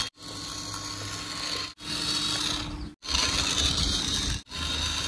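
A radio-controlled toy vehicle's small electric motor and plastic gearbox whirring steadily with a low hum. The whir breaks off abruptly three times.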